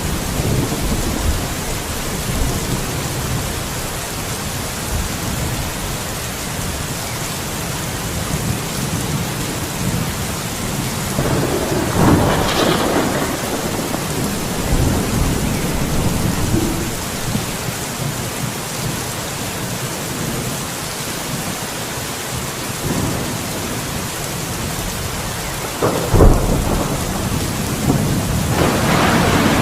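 Steady rain falling during a thunderstorm, with thunder cracking about twelve seconds in and again near the end, where a rumble builds.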